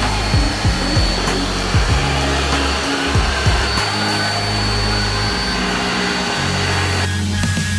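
Kärcher K 2 Horizontal pressure washer running and spraying: a steady high whine over a dense hiss, which cuts off about seven seconds in. Background music with a bass line and beat plays throughout.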